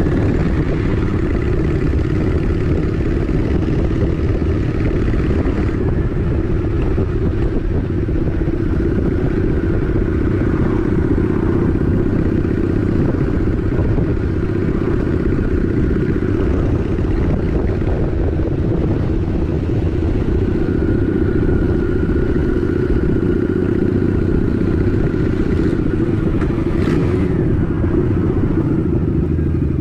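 Honda Shadow 750 ACE's V-twin engine running steadily at cruising speed.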